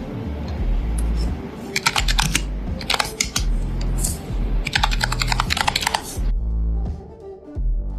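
Computer keyboard typing in a few quick bursts of key clicks that stop about six seconds in, over background music.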